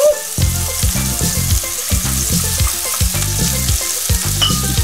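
Chopped vegetables sizzling in hot oil in a stainless frying pan as green bell peppers are spooned in, a steady hiss broken by scattered light clicks and knocks.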